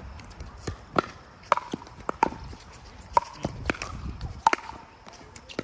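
Pickleball paddles striking a plastic pickleball in a fast rally: a series of about six sharp pops, each with a short ringing tail, coming every half second to a second, with softer clicks between them.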